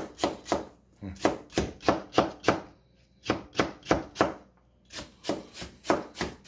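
Kitchen knife slicing chayote into thin strips on a plastic cutting board: crisp cuts at about three to four a second, in runs broken by short pauses.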